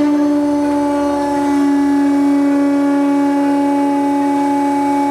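Two-post car lift's hydraulic pump motor running with a loud, steady hum of several fixed tones while the lift raises a kei van.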